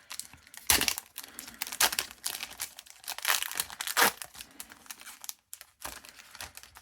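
Foil wrapper of a Japanese Pokémon card booster pack crinkling and tearing as it is ripped open: a run of irregular crackles, loudest in the first four seconds, then thinning out.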